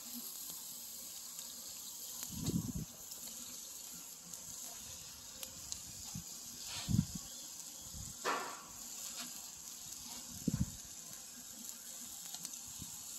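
Spice-rubbed chicken sizzling on a charcoal grill: a steady high hiss, broken by a few low thuds, the loudest about two and a half, seven and ten and a half seconds in.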